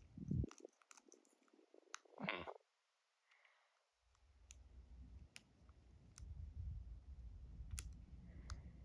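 Faint clicks and scrapes of a pick working the pins of an Ultion dimple cylinder lock, with two louder scrapes early on and a low handling rumble from about four seconds in.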